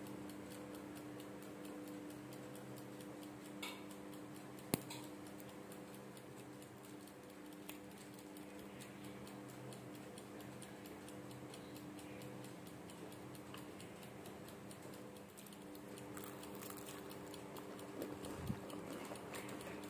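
A steady low hum with a fast, even ticking like a clock running through it, and one sharp click about five seconds in.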